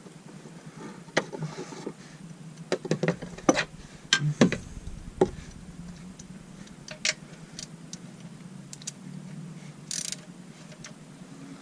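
Hand tools clicking and knocking in scattered, irregular bursts as a part under the car is tightened down during an oil change. There is a short hiss near the end.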